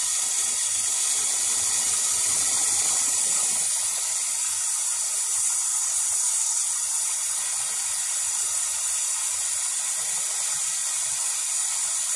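Water jetting from a garden hose spray nozzle into a nearly full steel sap evaporator pan, a steady hiss of spray striking the water's surface.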